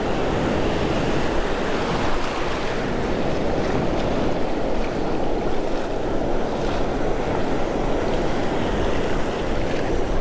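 Ocean surf breaking and foamy water washing close around the microphone, with wind rumbling on the microphone.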